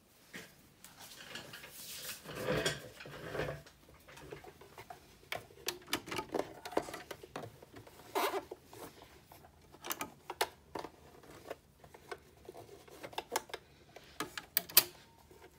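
Fabric and elastic rustling as they are handled, then scattered small clicks and taps as the work is fed under the presser foot of a Baby Lock overlocker; the machine is not running.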